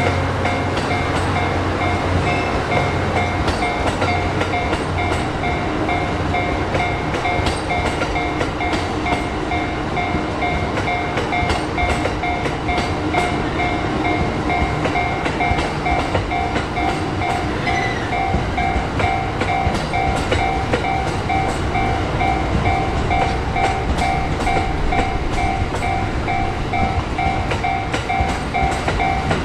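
Train passing over a level crossing, its wheels clattering over the rail joints, while the crossing's electronic warning bell rings over and over.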